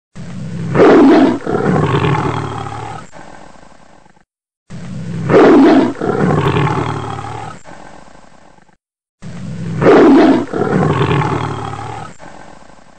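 Male lion roaring, the same roar repeated three times about four and a half seconds apart. Each one swells to a loud peak about a second in, breaks briefly, trails off, then cuts off abruptly.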